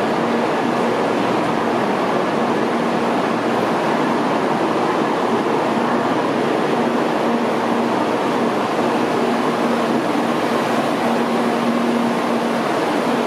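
Steady whirring hum of the Doctor Yellow 923 series shinkansen's blowers and cooling equipment while the train stands at the platform, with a faint low tone under it.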